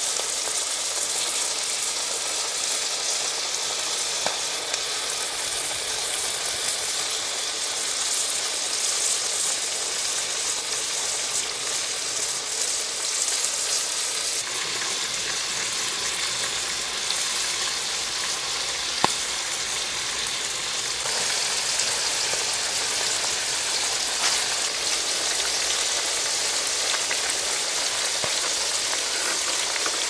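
Palm weevil larvae frying in oil in a wok: a steady sizzle, with a few single sharp pops.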